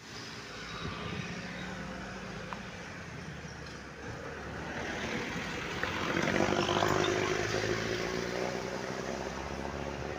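Road traffic: engines running with a steady low drone as a bus, a car and a motorcycle come up the road. The noise builds to its loudest about six to seven seconds in as they draw near.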